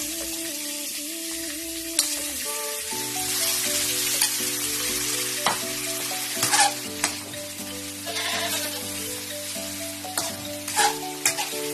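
Squid rings frying in an aluminium wok over a gas flame, a steady sizzle, with a few sharp metal clinks against the wok. Background music with slow, held chords plays underneath.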